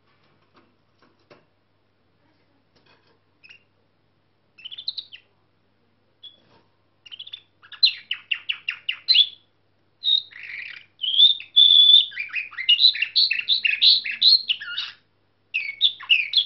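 Young canary singing nightingale-style song (bülbül ötümlü): a few short notes at first, then from about seven seconds in a continuous high song of rapid trills with a held whistle in the middle.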